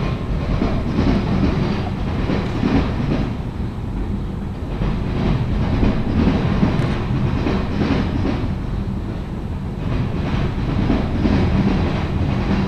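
Freight train boxcars rolling past, their steel wheels clacking over rail joints above a steady rumble.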